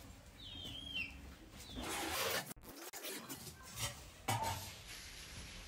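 A short falling bird chirp near the start, then a scraping, rubbing noise and a couple of sharp knocks.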